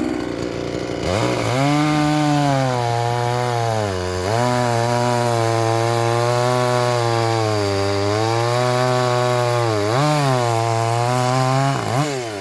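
Champion 251 two-stroke chainsaw revved up to full throttle about a second in and held there, likely cutting firewood. The revs drop briefly about four and ten seconds in, then flick up and down near the end. It runs strong and even, which the owner credits to a cleaned filter screen.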